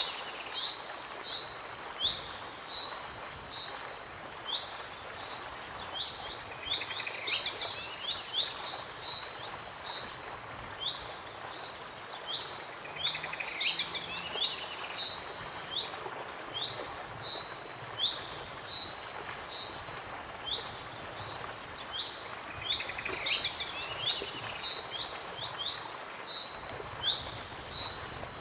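Songbirds chirping and trilling over a steady background hiss, with dense bursts of calls coming back every six to eight seconds.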